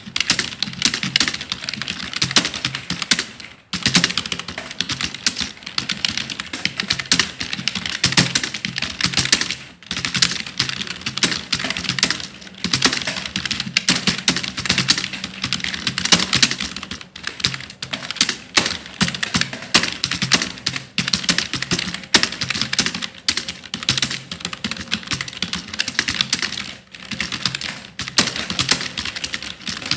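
Fast, continuous typing on a computer keyboard, many key clicks a second, broken by brief pauses about four seconds in, near ten seconds and near the end.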